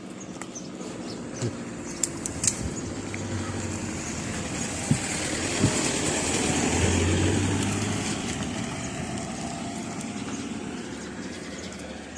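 A motor vehicle passing by: its engine and road noise grow louder to a peak about seven seconds in, then fade away. A few sharp clicks sound over it.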